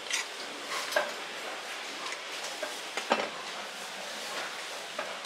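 Pork being butchered on a wooden chopping board: a few sharp knocks and clicks as the knife and meat are handled, the loudest about three seconds in, over a steady hiss of background noise.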